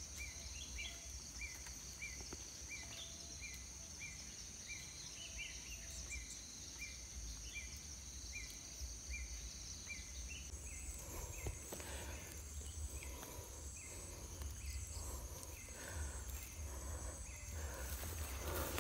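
Dusk insect chorus: a steady high shrill with a regular chirp repeating a little faster than once a second. About halfway through the chorus changes, and irregular rustling of steps through dry grass comes in, with a low wind rumble on the microphone.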